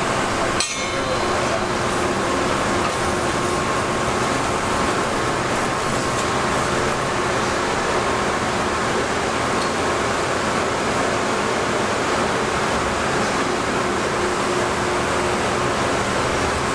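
Steady machine-shop din of lathes and other machine tools running, a dense hum and hiss with a faint steady whine in it. A sharp click and brief dropout come about half a second in.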